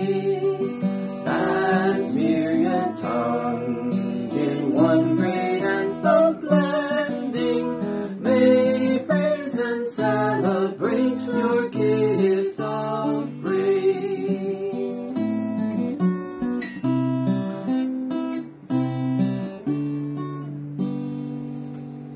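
A woman and a man singing a hymn to a strummed acoustic guitar. Near the end the singing stops and the guitar's last chord fades out.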